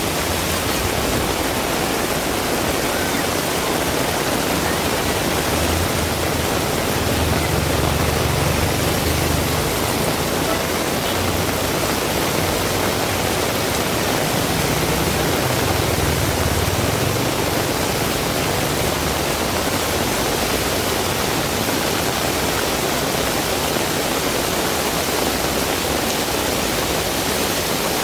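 Heavy rain pouring steadily in a constant dense hiss. A low rumble swells and fades twice, about a quarter of the way through and again past the middle.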